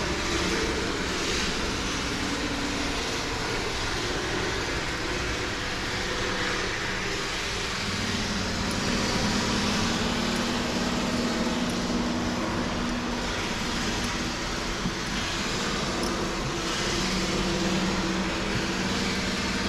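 Steady mechanical drone over a constant hiss, with a low wavering hum and a few faint high ticks now and then.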